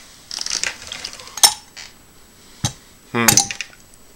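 A table knife scraping and clinking against a Vegemite jar, with a few sharp clinks, the loudest about a second and a half in. A short vocal sound from the man comes near the end.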